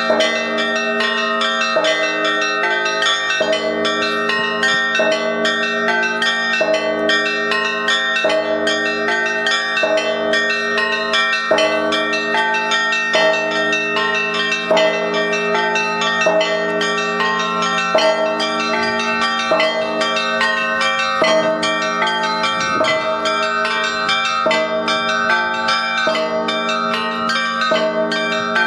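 Russian church bells ringing a continuous peal (kolokolny zvon): a dense ring of several bells, struck again and again in a steady beat a little under a second apart.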